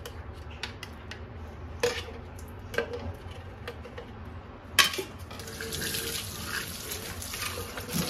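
Light clicks and knocks as a small brush scrubs inside a clear plastic vacuum dust cup. About five seconds in there is a sharp knock, then a tap runs water into the cup with a steady splashing hiss.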